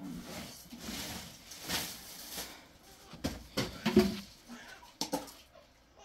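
Plastic kitchen containers and bags being handled: a rustle, then several light knocks and clatters, loudest about four seconds in.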